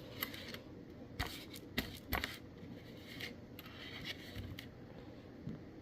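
Loose copper cents being handled one at a time: light, scattered clicks and scrapes of coins picked up and set down on a surface.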